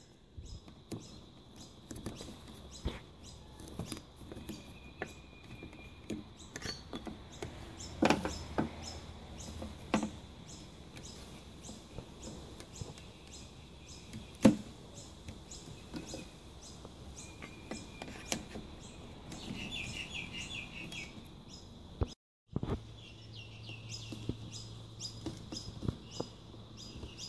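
Scattered clicks and knocks of hands working braided vacuum hoses off metal hose fittings and clamps, with a few louder knocks. The sound drops out briefly about two-thirds of the way through.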